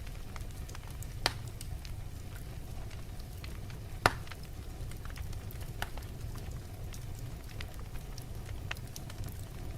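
Fireplace fire crackling, with scattered small snaps over a steady low rumble and a sharp pop about four seconds in, the loudest sound.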